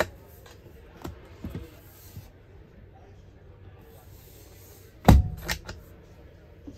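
Overhead wooden cabinet door in a truck sleeper being opened and shut by its knob: a click as it is pulled open and a few light knocks as it swings, then a heavy thump and quick latch clicks as it closes about five seconds in.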